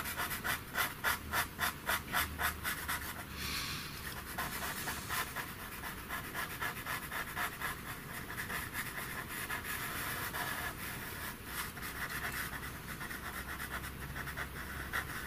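Faber-Castell Pitt pastel pencil scratching across pastel paper. It makes quick, short, repeated strokes, about five a second for the first few seconds, then a softer, steadier shading rasp.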